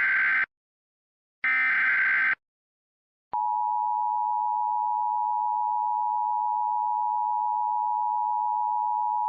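Emergency Alert System header: about one-second bursts of warbling data tones, repeated with one-second gaps. About three seconds in, a click starts the loud, steady EAS attention tone, which signals an alert message is about to be read.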